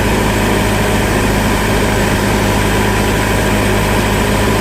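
Combine harvester's diesel engine running steadily at a constant speed.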